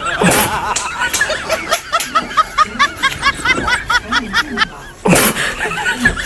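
Snickering laughter, a long run of quick high-pitched "hehe" bursts about three or four a second, over background music.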